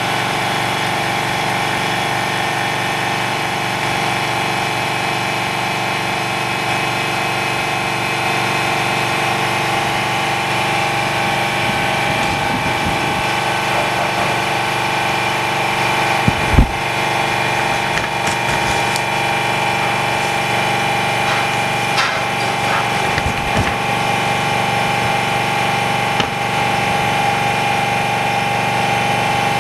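OCA bubble remover machine running its de-bubbling cycle, a steady mechanical hum with a few light clicks and one sharper knock about halfway through.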